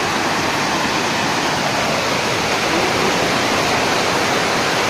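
Muddy floodwater of the rain-swollen Rispana river pouring over a drop like a waterfall and rushing past, a loud, steady rush of water.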